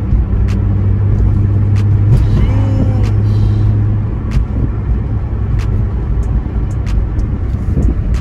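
Nissan 350Z's 3.5-litre V6 running while the car is driven, a steady low drone that drops away about four seconds in, heard from inside the cabin.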